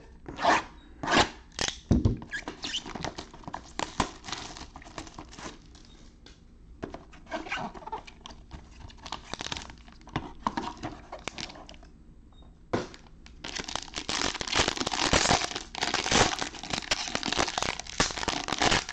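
Cellophane shrink wrap being torn and peeled off a trading-card hobby box, in scattered crackles. Then dense, continuous crinkling of the box's foil-wrapped card pack being unwrapped, loudest in the last third.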